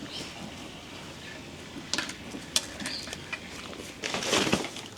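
A few light clicks and knocks, then a short scraping, rustling sound about four seconds in.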